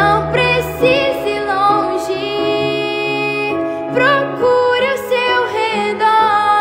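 A woman singing in Portuguese over an accompaniment track, holding long notes with vibrato.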